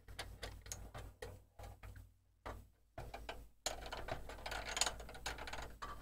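Light plastic clicks and rattles from a toy container ship's crane being worked by hand: the crane arm swings out and its grab lowers a plastic container off the deck. The clicks come in an uneven run, thickest about halfway through.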